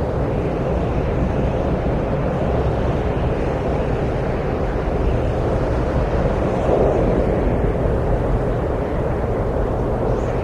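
Steady rushing wind, with a slight swell about seven seconds in.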